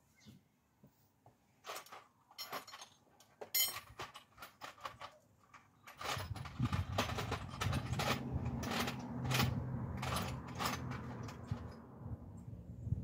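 Scattered light clicks and rattles of parts being handled in a car's engine bay. About six seconds in, a steady low hum starts suddenly and holds, with clattering continuing over it.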